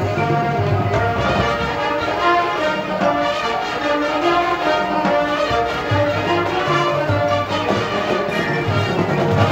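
High school marching band playing a full, loud passage: brass holding chords over changing low bass notes.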